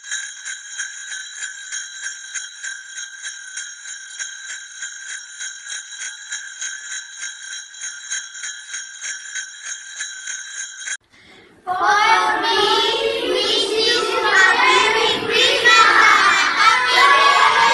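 Jingle bells shaken in a steady rhythm, about two shakes a second. They stop about eleven seconds in, and after a brief gap a group of children shout and cheer.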